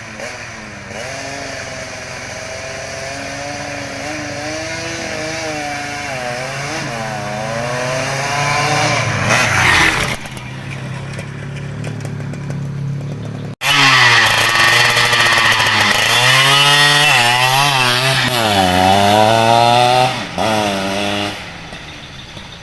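Underbone motorcycle engine being revved again and again, its pitch climbing and dropping with the throttle. It cuts off abruptly a little past halfway, comes back louder with more revs, then eases down near the end.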